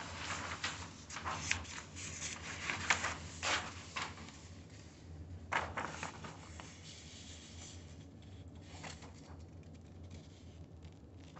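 A large sheet of drawing paper rustling and crackling as it is pulled from a portfolio and handled, busiest through the first few seconds with another flurry a little past the middle, then only faint handling.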